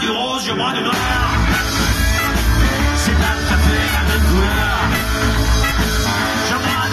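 Live rock-and-roll band playing a boogie blues, with saxophone, accordion, fiddle, guitars and electric bass behind a singer. The bass drops out at the start and the full band comes back in about a second in.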